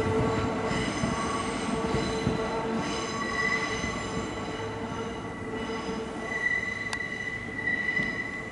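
Kintetsu 'Aozora II' charter train moving slowly away over curved junction track, its wheels squealing: a steady lower squeal gives way to a shriller one about three seconds in, over a fading rumble.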